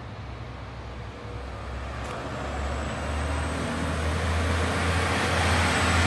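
Renault Kerax 370 dCi 8x4 concrete mixer truck driving up, its diesel engine running with a low steady hum that grows louder as the truck approaches.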